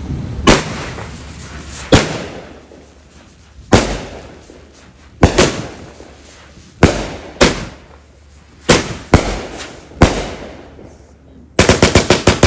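Fireworks going off: about nine sharp bangs one to two seconds apart, each trailing off, then near the end a rapid string of cracks like a firecracker string.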